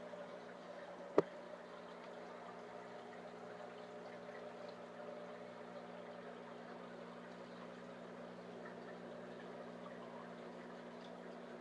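Aquarium filter running: a steady low hum with a faint wash of moving water. One sharp click about a second in.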